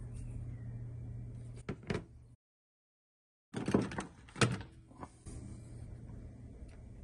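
A few sharp knocks and clunks, a pair of them about two seconds in and a louder cluster about halfway through, over a steady low hum. Between them the sound cuts to dead silence for about a second.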